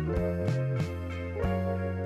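Instrumental background music with a steady beat of struck notes over a held bass.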